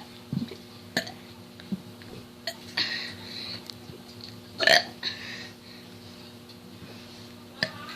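A six-year-old girl burping over and over: a string of short burps, the loudest a little under five seconds in.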